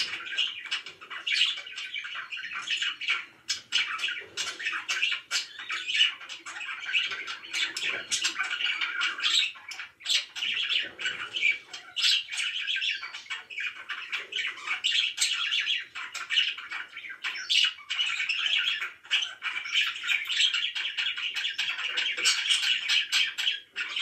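A small flock of pet budgerigars chirping and chattering together in a cage: a dense, unbroken stream of quick, overlapping chirps and calls.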